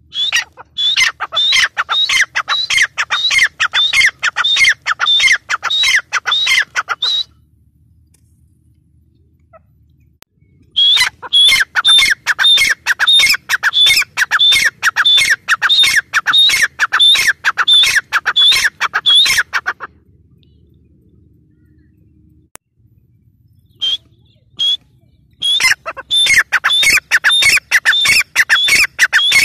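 Grey francolin calling in long runs of quick, sharp, high notes, about two to three a second. It calls in three bouts with pauses of a few seconds between them.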